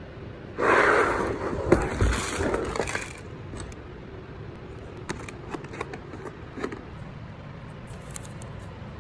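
Loose screws and small hardware rattling and sliding inside a Milwaukee Packout plastic organizer as the case is tipped over, with a couple of knocks and a heavy thud as it lands on the table. A few light plastic clicks follow.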